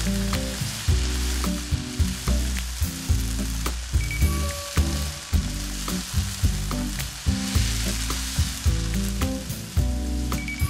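Sliced garlic and then small dried anchovies sizzling in hot oil in a frying pan as they are stir-fried to turn the garlic golden. A wooden spatula gives scattered scrapes and taps against the pan.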